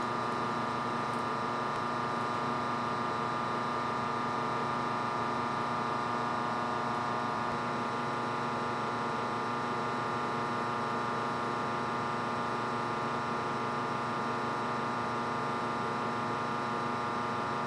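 Steady electrical hum: several fixed tones over an even fan-like whir, from the running Tektronix Type 575 transistor curve tracer.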